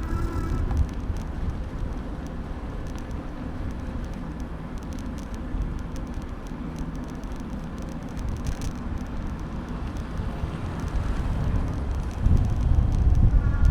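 City street traffic heard from a moving bicycle, with steady low wind rumble on the microphone; it grows louder about twelve seconds in.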